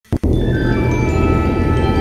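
Intro music: a sharp hit at the very start, then many held ringing tones over a deep low rumble.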